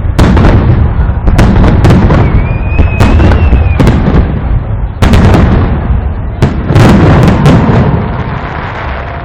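Fireworks salute going off: repeated sharp bangs over a continuous low rumble, with a brief high whistle a couple of seconds in, thinning out near the end.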